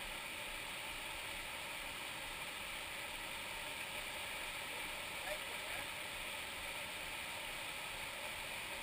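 Steady rush of river water pouring over rocks and a small waterfall in a narrow stone gorge, an even hiss that does not let up.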